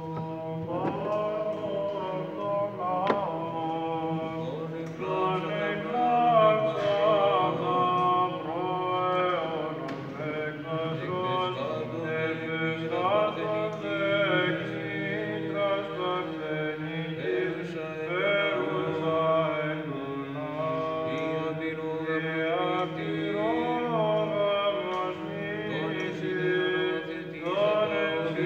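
Byzantine chant of Orthodox Vespers, sung by monks: a winding melodic line over a steady low held note, the ison drone.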